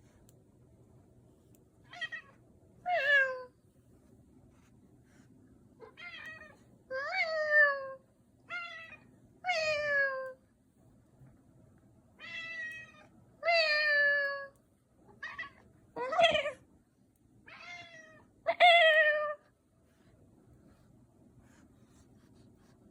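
Meows traded back and forth between a cat and a person imitating it, in six rounds: each time a short, quieter meow is answered by a longer, louder meow that falls in pitch.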